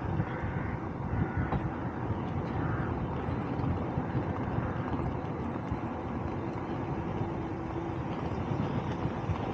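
Wind buffeting the microphone of a camera on a moving bicycle: a steady low rumble.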